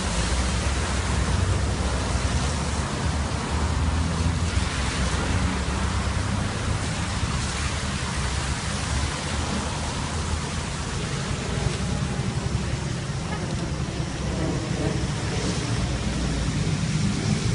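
Steady rushing noise of traffic driving through floodwater, tyres splashing through the standing water, over a low, unsteady rumble of wind on the microphone.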